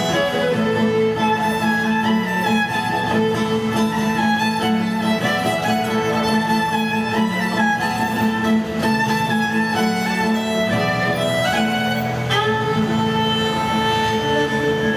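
Fiddle and acoustic guitar playing a Celtic tune together, the fiddle carrying the melody over the guitar's accompaniment.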